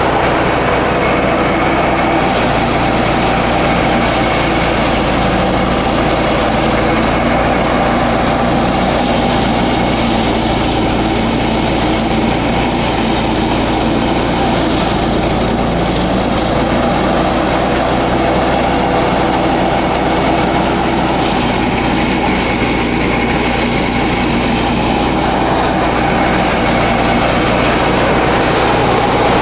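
Engine-driven rice thresher running steadily.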